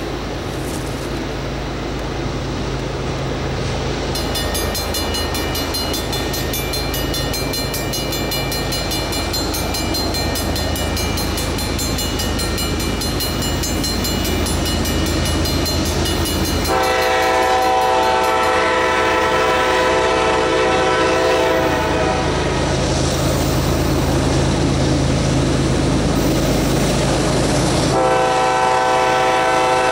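Approaching GE ES44AC diesel locomotives with a steady low engine drone. The lead locomotive's air horn sounds a long blast about 17 s in, holding for about five seconds. It sounds again near the end.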